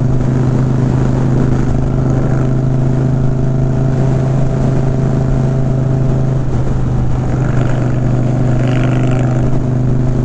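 V-twin motorcycle engine and exhaust running steadily at a constant cruising speed, heard from the rider's own bike, with wind and road noise underneath.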